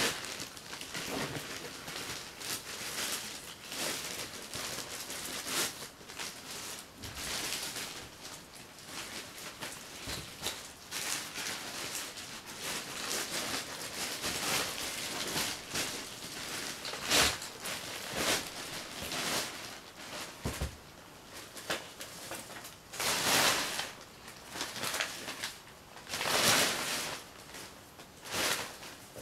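A thin plastic carrier bag rustling and crinkling on and off as odds and ends are tipped and dropped into it, with a few sharper knocks of harder items landing.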